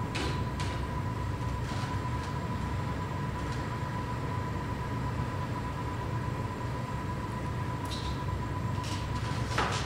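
A steady low rumble with a thin, constant high tone running through it. A few light knocks and creaks from a person shifting on wooden climbing holds, just after the start and again near the end.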